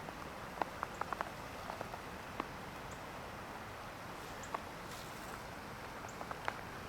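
Irregular small clicks and ticks, several in quick succession about a second in and a few scattered later, over a steady outdoor hiss.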